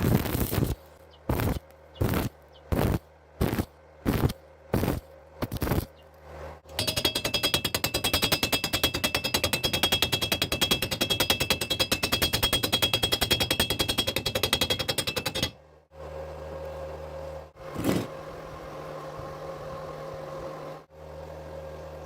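Electric welding arc on thin square steel tube: about eight short arc bursts, one every two-thirds of a second or so, then a steady crackling arc for about nine seconds. After the arc stops, a low steady hum remains, broken by one more short burst.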